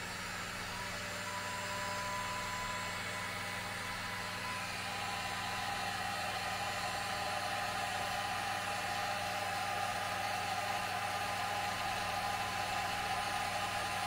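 1800-watt electric heat gun blowing hot air: a steady fan whir and rush of air over a low motor hum, getting slightly louder over the first few seconds. It is running below its full setting.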